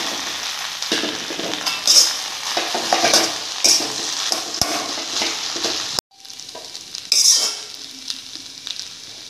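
Sizzling in a frying pan as Maggi noodles are stirred into fried prawns, corn and spring onion in sauce, with a spoon scraping and knocking against the pan now and then. The sound cuts off suddenly about six seconds in and comes back quieter.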